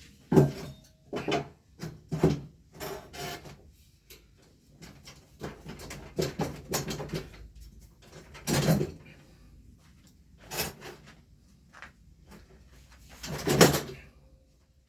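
Irregular knocks and scraping as a ski lift chair's leg is worked onto the seat frame, a tight fit. There are several sharp knocks near the start, a run of scraping and rattling midway, and the loudest knock near the end.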